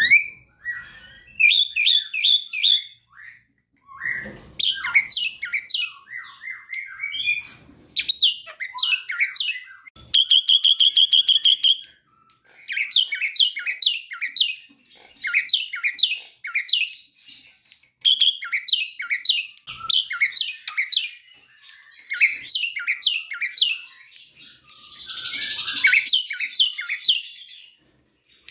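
Javan myna singing vigorously: phrases of quick, repeated down-slurred whistled notes broken by short pauses. About ten seconds in comes a fast, even trill, and near the end a harsh, scratchy phrase.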